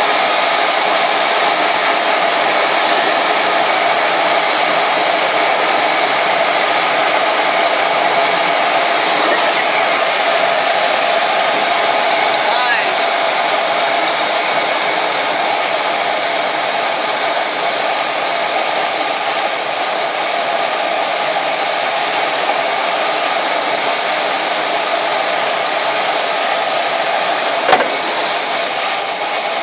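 Steady rush of airflow over the canopy of a Schleicher ASK 21 glider in flight, heard from inside the cockpit, easing slightly over the second half, with one short click near the end.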